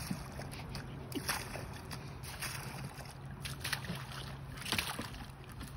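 Water being bailed out of a small dinghy with a plastic scoop: a series of splashes and sloshes, about one a second, as scoopfuls are thrown over the side.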